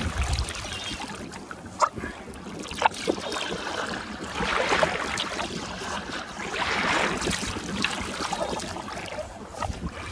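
Sea kayak under way: water splashing and swishing around the paddle and hull, swelling every couple of seconds with the strokes, with a couple of sharp clicks near the start.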